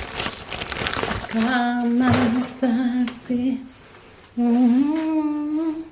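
Crinkling of packaging for about the first second, then a person humming two long held notes, the second rising slightly at the end.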